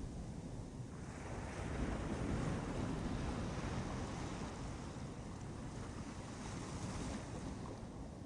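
Ocean surf on a beach: a wave breaks about a second in, swelling to its loudest and then slowly washing out.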